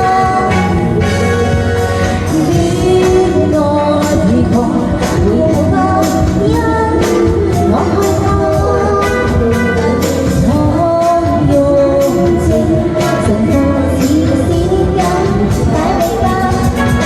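A woman singing a pop song over backing music with a steady beat.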